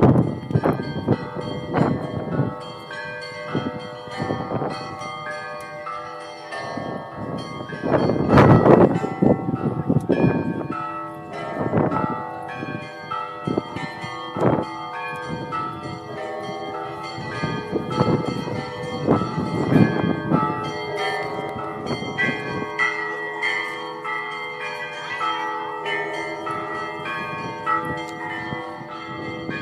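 Russian Orthodox church bells ringing: several bells of different pitches struck in a running pattern, with a heavy low bell coming in every few seconds. The loudest low strokes fall about eight seconds in, and toward the end the smaller, higher bells carry the ringing.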